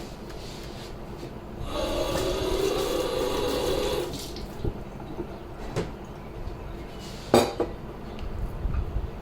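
Water running for about two seconds, then a few sharp knocks of a knife on a cutting board as roasted peppers are cut, the loudest about seven seconds in.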